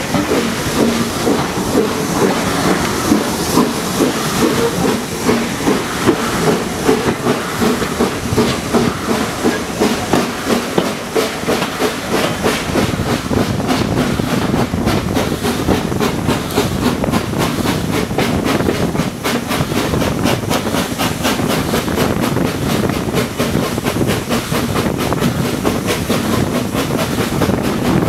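Steam-hauled passenger train under way, heard from an open carriage window: the locomotive's exhaust beats and steam over the steady clatter of the carriage wheels on the rails.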